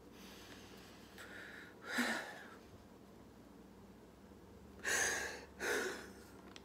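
A man crying, drawing short, sharp sobbing gasps: one about two seconds in, then two close together near the end.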